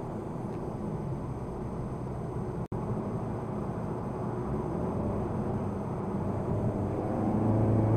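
In-cabin engine and road noise from a Skoda Superb 206TSI's turbocharged 2.0-litre four-cylinder, fitted with an aftermarket diverter valve, turbo muffler delete and high-flow elbow. The car is under way at a steady engine note. The sound drops out for an instant about two and a half seconds in, and the engine note grows louder near the end.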